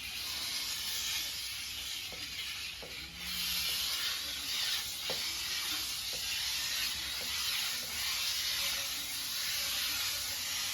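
Steam hissing steadily from the Kitfort KT-555 steamer as it is pressed on, growing louder about three seconds in, with a few faint ticks.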